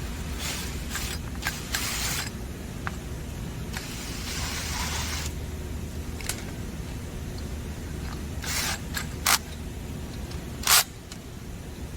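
Screws being driven back into a motor mounting bracket, with metal parts and tools handled: scattered scrapes and sharp clicks, one longer scrape about four seconds in and the loudest click near the end, over a steady low hum.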